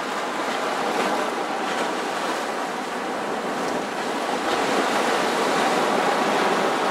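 Sea surf breaking and washing over a rocky shore: a steady rush that swells a little now and then.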